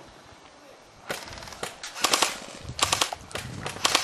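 Airsoft rifle firing short full-auto bursts as rapid rattling clicks, about four bursts starting roughly a second in.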